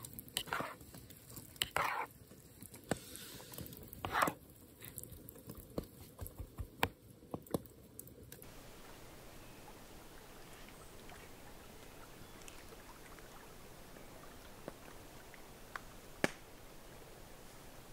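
Metal spoon stirring and scooping thick, wet rice pudding in a camp pot: short squelching scrapes and clicks of the spoon on the pot. About eight seconds in, these give way to a steady faint hiss with an occasional click, one sharp click near the end.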